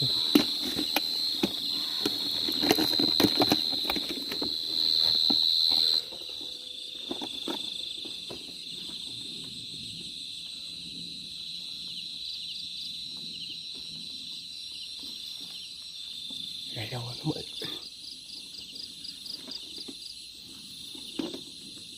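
Crickets trilling steadily, loud for about the first six seconds with knocks and rustling close by, then quieter after a sudden drop, with fast pulsed chirping toward the end.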